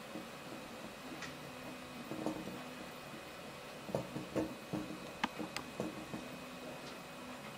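Homemade 3D printer at work: its stepper motors hum in short tones that change pitch as the print head moves, with scattered sharp ticks, most of them about four to six seconds in.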